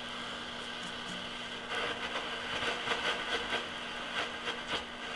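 Philco 38-116 radio on its shortwave band giving out static: a steady hiss with a low hum underneath, with crackling that grows louder about two seconds in as the dial is tuned.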